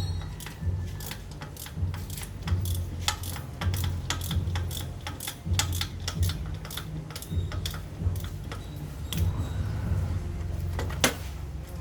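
Irregular small metallic clicks and clinks, a few a second, with one sharper click near the end, over a low uneven hum: typical of tools and small parts being handled while working on an electric bike.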